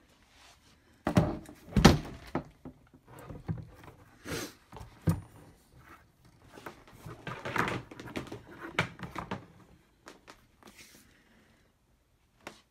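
Irregular knocks and thunks of hard plastic parts being handled and bumped around a sink, the loudest about two seconds in, with lighter rustling and knocking after and a lull near the end.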